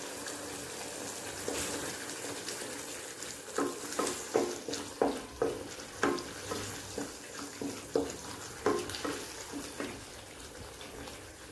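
Thick garlic-tomato-chili chutney paste sizzling and bubbling in a nonstick kadai as it cooks down. From a few seconds in, a wooden spatula stirs it, knocking and scraping against the pan about two to three times a second for around five seconds.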